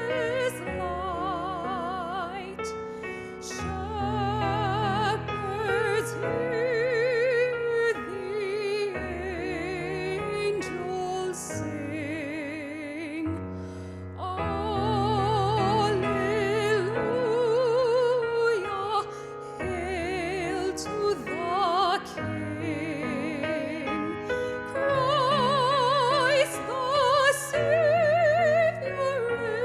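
Classical-style concert music: a melody held in long notes with wide vibrato over sustained low accompaniment, in an operatic manner.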